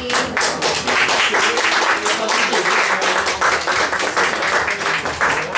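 A small audience applauding with steady, dense clapping.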